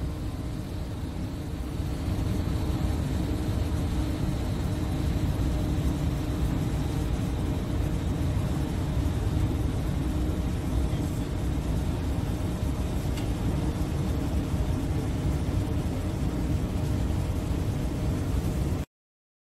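Steady rushing wind and sea noise aboard a ship at sea, heaviest in the low rumble, with a faint steady hum underneath. It cuts off suddenly shortly before the end.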